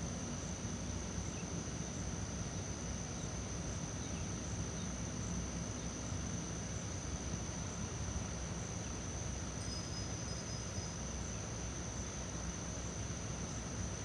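Insects shrilling in one steady high-pitched note over a low, even rumble.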